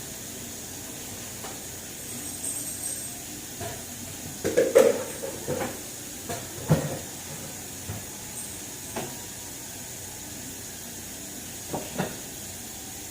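Kitchen faucet running steadily into a plastic 2-liter bottle, with scattered knocks and clatters of the bottle being handled; the loudest clatter comes about five seconds in.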